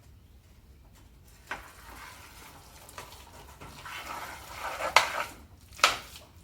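Fried rice being stirred and scraped around a pan on the stove, with a faint sizzle. A utensil knocks sharply against the pan twice near the end.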